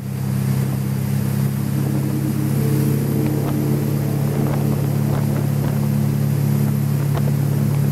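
Tow boat's engine running steadily at towing speed, a constant low hum, over the rush of water and wake spray.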